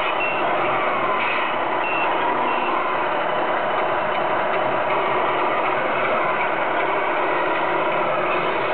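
1/14 Tamiya Scania R620 radio-controlled truck reversing: electronic reversing beeps repeat in the first few seconds over the steady sound of the truck running, with a motor whine rising and falling in pitch as the truck changes speed.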